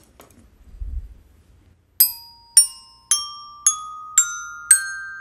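Orchestra bells (glockenspiel) struck with hard plastic-headed mallets: single bright notes about two a second, climbing step by step up a scale, each ringing on under the next. They start about two seconds in, after a soft low knock.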